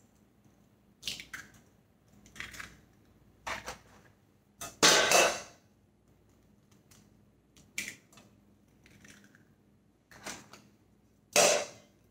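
Eggs cracked one after another against a stainless steel mixing bowl: a string of short, sharp taps and shell cracks about one to two seconds apart, the loudest about five seconds in.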